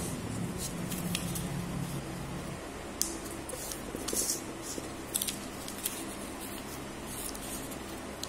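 A sheet of ruled notebook paper being folded and creased by hand: a string of short, sharp paper rustles and crackles, the sharpest a little after halfway.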